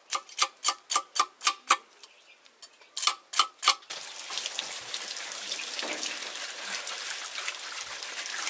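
A knife blade scraping scales off a climbing perch in quick, sharp strokes, about four a second, then a short pause and three more strokes. About four seconds in this gives way to water pouring steadily and splashing over the cleaned fish in a woven bamboo basket.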